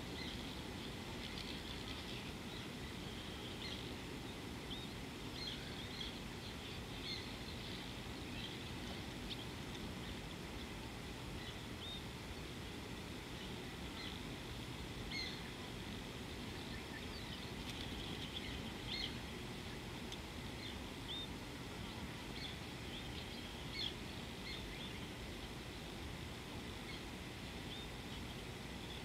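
Birds chirping: many short, high calls repeating at irregular intervals over a steady low rush of background noise.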